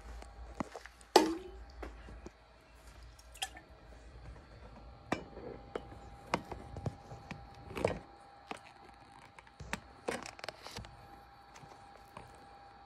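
Light knocks and clicks of a phone camera being handled and set down on a wooden windowsill: one sharp knock about a second in, then scattered soft taps, over a faint steady hum.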